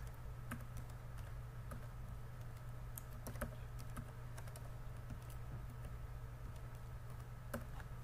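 Typing on a computer keyboard: scattered, irregular key clicks over a steady low hum.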